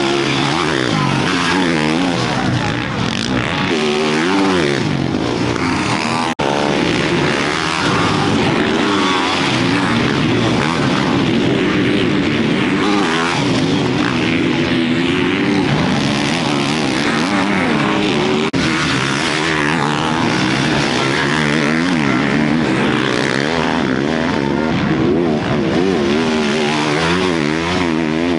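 Motocross dirt bikes racing, their engines revving up and down through the gears without a break, with more than one engine at times.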